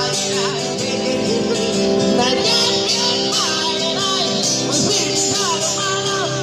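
A busker singing a song over guitar accompaniment, the voice sliding and wavering between held notes.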